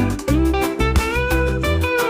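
Reggae-blues instrumental music: a guitar lead line with held, bending notes over a bass line and steady drum beats.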